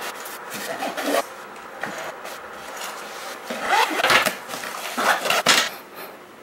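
A nylon The North Face backpack being handled and zipped on a wooden table: fabric and zipper rasping and rubbing, with scrapes against the tabletop. It comes in several short bursts, the loudest about four and five seconds in.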